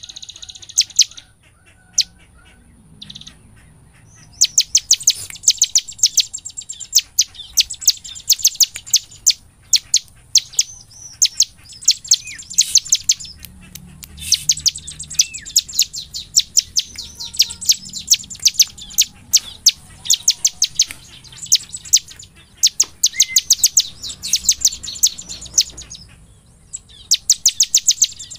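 Bar-winged prinia (ciblek) singing energetically: a few scattered sharp notes at first, then from about four seconds in long runs of rapid, high-pitched notes, broken by short pauses.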